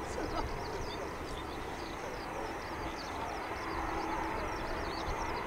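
Distant jet-engine rumble of a Boeing 787 rolling out on the runway just after landing, swelling slightly in the second half. Many short, high chirps sound over it.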